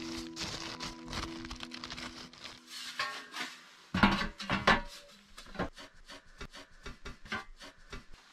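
Irregular knocks and clatter of wood being handled, loudest in a cluster about four seconds in, with background music fading out over the first two seconds.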